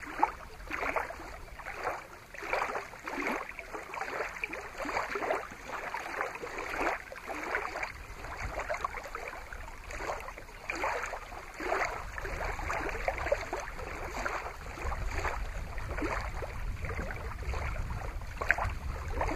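Small lake waves lapping and splashing irregularly against a rocky shoreline, with a low rumble of wind on the microphone underneath.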